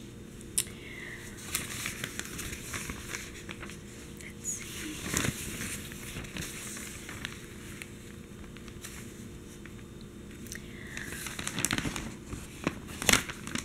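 USA Today newspaper pages rustling and crinkling as a large sheet is lifted, turned and let back down, with scattered sharp crackles of newsprint. The handling is busiest about five seconds in and again near the end, where the loudest crackle comes.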